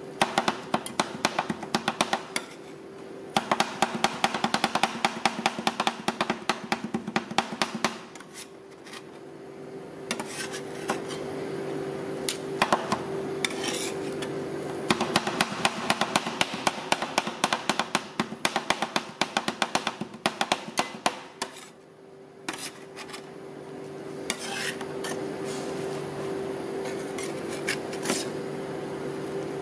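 Two metal spatulas chopping and scraping ice cream mixture on the steel cold plate of a rolled ice cream machine: fast clattering taps, many a second, with a couple of short pauses, over a steady hum.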